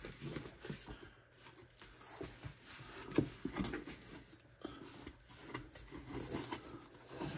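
Corrugated cardboard box flaps being folded open and handled: scattered soft scrapes and light knocks at irregular times, the sharpest about three seconds in.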